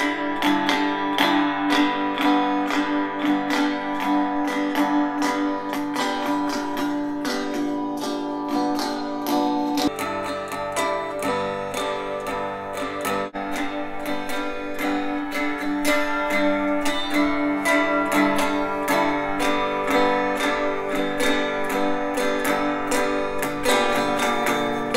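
Guitar recording played back through a Bose 401 corner speaker and picked up again by room mics. About ten seconds in the playback switches to a home-made four-channel multi-directional speaker, and the lowest notes come through fuller.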